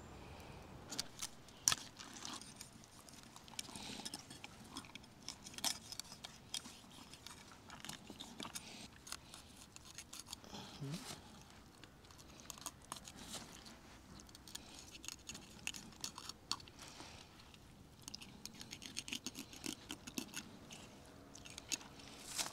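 Quiet, irregular wet crackles and squelches of a raw sturgeon being gutted by hand on a wooden bench, its innards pulled and torn free.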